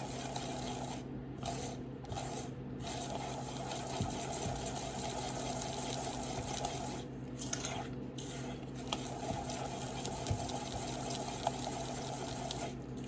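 Wet cake-like mixture being stirred in a bowl, a soft swishing slosh that pauses briefly now and then, with a few light clicks of the utensil against the bowl. A steady low hum runs underneath.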